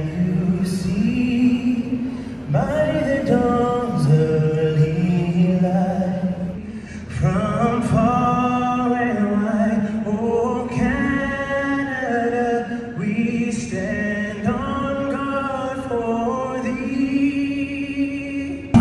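Unaccompanied singing, with long held notes that slide between pitches.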